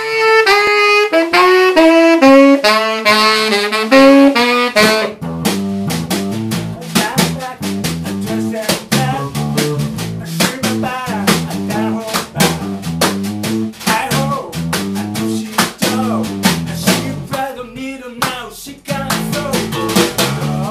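Live band music: a lead instrument plays a descending run of held notes, then about five seconds in an electric bass and drum kit come in with a steady groove.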